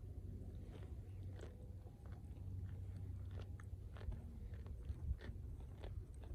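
A cow chewing, jaws grinding with irregular crisp crunches over a low steady rumble.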